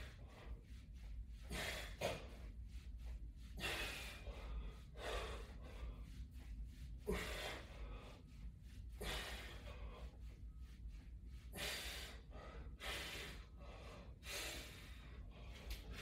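A man breathing hard from exertion, with a forceful breath about every one to two seconds, over a faint steady low hum.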